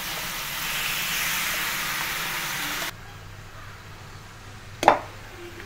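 Boneless chicken thigh meat sizzling as it fries in a dry pan without oil, a steady hiss that cuts off suddenly about three seconds in. After that a low hum and one sharp knock near the end.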